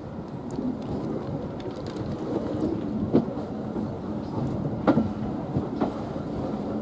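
Train running along the line, heard from inside the driving cab: a steady rumble with a low hum and a few sharp clicks, the loudest about three and five seconds in.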